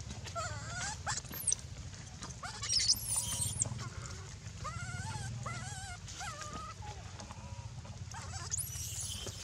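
Infant macaque crying: a string of short wavering whimpers and squeals, a few of them shrill, with a low steady hum underneath.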